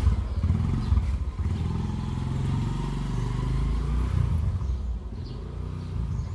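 Small Honda motorcycle engine running as the bike rides off, a steady low rumble that gets a little quieter near the end.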